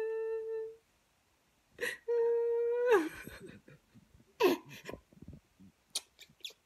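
A woman's pretend crying: a wail held on one steady pitch, breaking off under a second in, then held again and dropping away at its end. About four and a half seconds in, a baby answers with a short whimpering cry that falls steeply in pitch.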